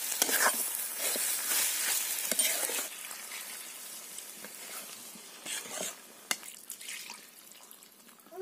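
Brinjal and potato pieces sizzling in a hot iron wok, stirred with a metal ladle that scrapes the pan, for about three seconds. Then water is poured into the wok and the sizzling quietens.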